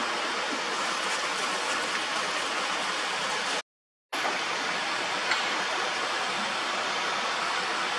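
Steady rushing noise without any tone or rhythm. It drops out completely for about half a second just before the middle, and there is a single short tick a little after five seconds in.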